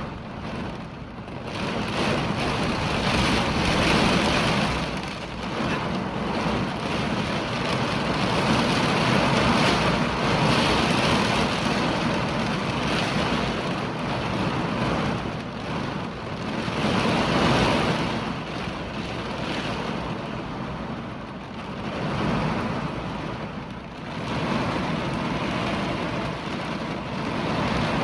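Hurricane wind and heavy rain, a steady rushing that swells and eases in gusts every few seconds.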